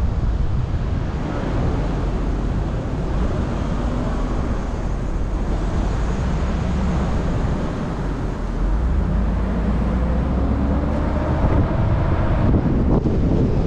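Steady road and wind noise from a car driving along a city street, heaviest in the low rumble. A faint rising engine tone comes in during the second half as the rumble grows a little louder.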